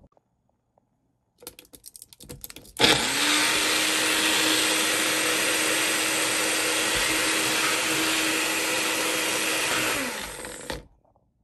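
Magic Bullet personal blender chopping peppers, onions and garlic. A quick run of clicks and rattles comes first, then about three seconds in the motor starts with a rising whine, runs steadily for about seven seconds, and winds down to a stop near the end.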